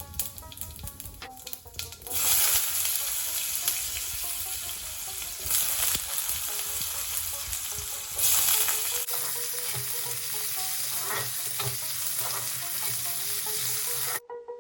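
Food frying in hot oil in a pan, a loud sizzle that starts suddenly about two seconds in and swells twice more. A light plucked-string tune plays before the sizzle starts and faintly under it.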